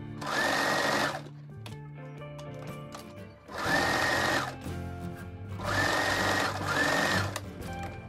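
Electric home sewing machine stitching a seam in three short runs, each starting with a rising motor whine that levels off, with quieter gaps between runs.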